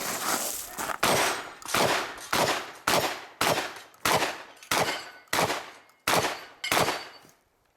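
Semi-automatic shotgun fired in a quick string of about ten shots, roughly one every two-thirds of a second, each shot trailing off briefly before the next; the firing stops about seven seconds in.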